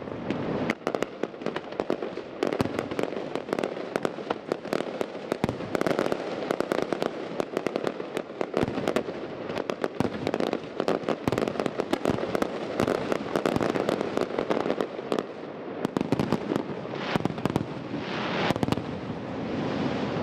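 Fireworks display: aerial shells and smaller effects bursting in a dense, unbroken run of rapid bangs, pops and crackles.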